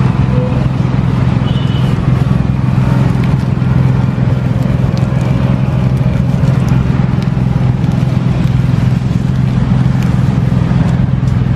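Steady low engine hum of motor traffic or an idling vehicle, with a few faint crinkles and clicks from the ice-cream wrapper and plastic glove.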